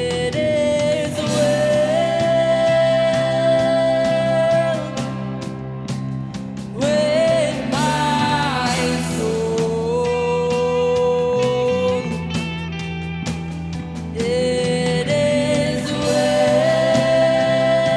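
Church worship band playing a slow song, with long held melody notes that bend and glide between pitches over steady guitar and keyboard-like chords.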